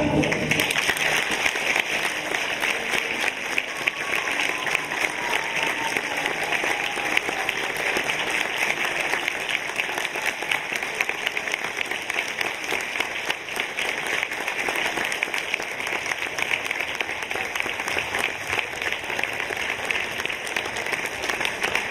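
Large audience applauding, a dense and even clapping.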